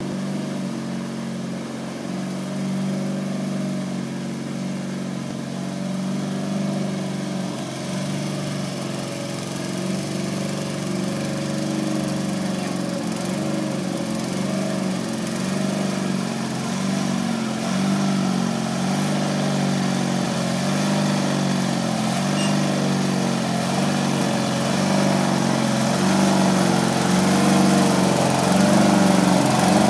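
MTD 995 garden tractor's engine running steadily under load as it drags a homemade box grader over a gravel driveway. It grows gradually louder as the tractor comes closer near the end.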